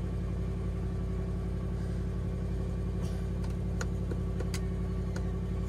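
Land Rover LR3's V8 engine idling steadily, heard from inside the cabin, with a few faint ticks about three to five seconds in.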